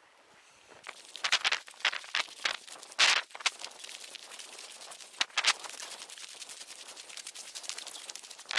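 Running footsteps crunching on a frozen, snow-dusted field track, with clothing and gear rustling against the microphone. They start about a second in as a quick, uneven run of crunches and knocks.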